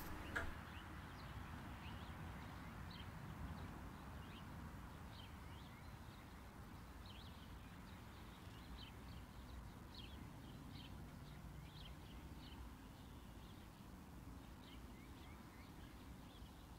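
Faint countryside ambience: birds chirping in short, scattered calls over a low steady rumble.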